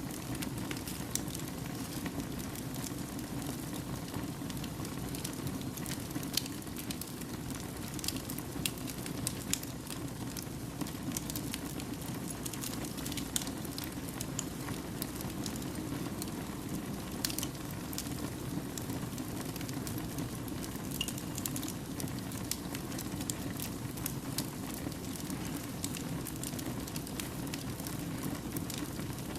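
Fire burning steadily in a fireplace, a low, even rush of flames with frequent small crackles and pops scattered throughout.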